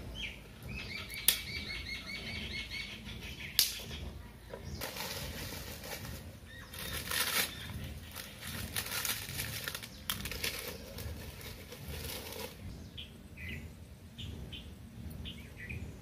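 Dry sticks and brushwood being handled and broken for a wood fire: two sharp snaps in the first few seconds, then a long stretch of rustling and scraping twigs. A bird chirps in a quick series near the start, and small chirps come near the end.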